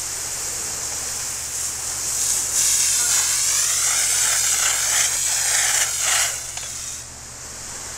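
Pressurised FEM-12 SC extinguishing agent hissing from a spray wand onto a burning titanium powder fire, with steam coming off the hot metal. The hiss grows louder about two and a half seconds in, with a wavering whistle-like tone in it, and drops off suddenly near the end.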